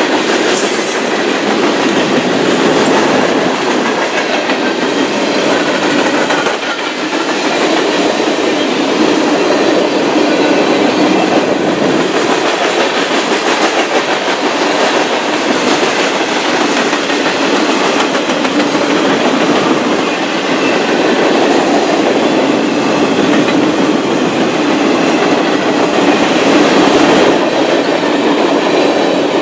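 Freight cars of a Union Pacific train, boxcars and covered hoppers, rolling past at steady speed: a continuous rumble of steel wheels on rail.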